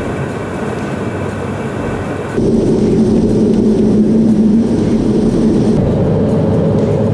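Jet aircraft engine noise, a steady rushing drone. About two seconds in it changes abruptly to a louder, deeper drone.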